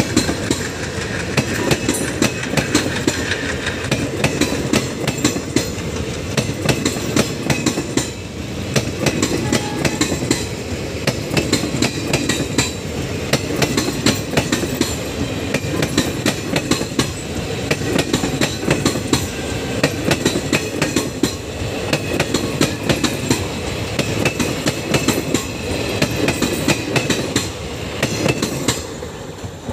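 Express train's passenger coaches rolling past close by: a steady rumble with the wheels clicking rhythmically over the rail joints. Near the end the sound falls away as the last coaches pass.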